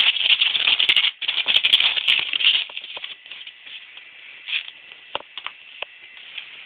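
A dog's paws scrabbling rapidly on the ground as it spins in circles. A dense rattling patter, loud for the first two and a half seconds or so, then fading to scattered scuffs and clicks.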